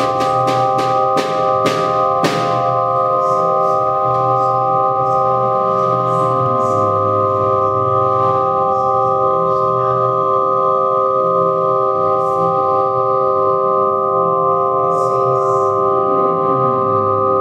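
Live improvised music: a keyboard holds a sustained organ-like chord over a slowly shifting low bass line. A quick run of drum strokes fades out in the first two seconds.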